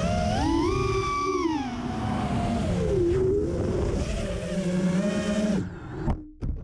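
FPV racing quadcopter's motors and propellers whining, the pitch rising and falling with the throttle. It cuts off abruptly about five and a half seconds in, followed by a couple of short clicks.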